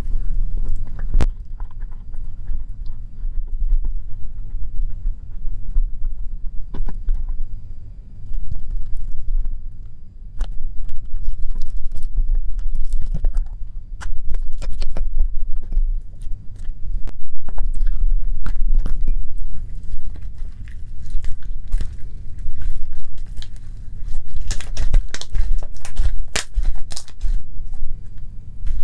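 Plastic spoon stirring and scraping thick, sticky slime in a glass bowl: irregular wet clicks and crackles over a steady low rumble. The clicks get louder and thicker near the end as the slime is worked by hand.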